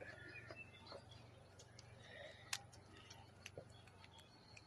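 Faint, scattered plastic clicks of a dollar-store Rubik's Cube being twisted, with a clearer click about two and a half seconds in and another about a second later.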